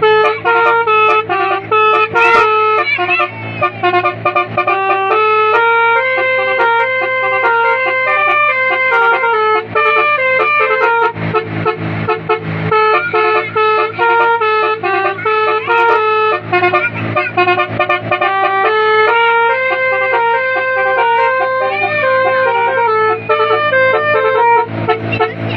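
Basuri multi-tone 'telolet' horn playing a fast melody, one note after another, over a steady low hum.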